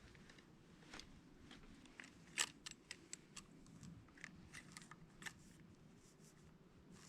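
Near silence with a scatter of small, faint clicks and light rustles, one sharper click about two and a half seconds in.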